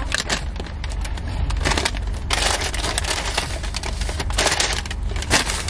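Paper takeout bag rustling and crinkling in irregular bursts as it is handled and set down, over a low steady hum.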